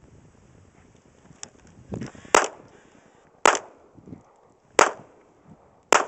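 Four gunshots fired at a steady pace, a little over a second apart, beginning about two seconds in.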